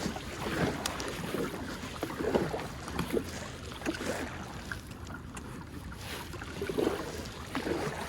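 Kayak paddle dipping and splashing in the water in uneven strokes, with a low rumble of wind on the microphone underneath.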